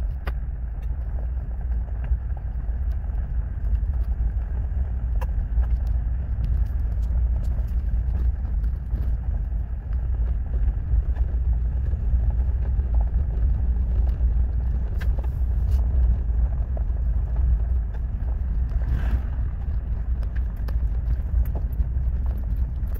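Vehicle driving on a gravel road, heard from inside the cabin: a steady low rumble of engine and tyres with a few faint clicks scattered through it.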